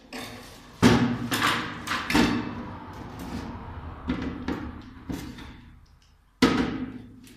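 Hollow plastic flush cistern parts being handled and fitted together, giving a run of sharp plastic knocks and clatters. The loudest knocks come about a second in and again near the end.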